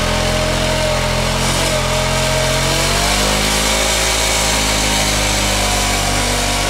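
Suzuki Burgman 400 scooter's single-cylinder engine held at steady high revs during a burnout, its rear tyre spinning on concrete with a wavering squeal over the engine note. The engine note shifts slightly about three seconds in.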